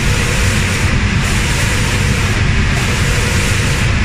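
Automatic spray painting machine for cabinet doors running: a loud, steady hiss of air and spray over a low mechanical rumble, with the highest part of the hiss thinning out briefly about every second and a half.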